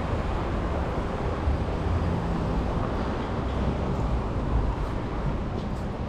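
Steady low rumble of city street traffic.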